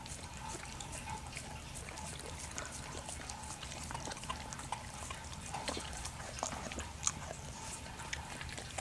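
Pit bull mother licking and nuzzling her newborn puppy: a run of small, wet, irregular clicks and slurps.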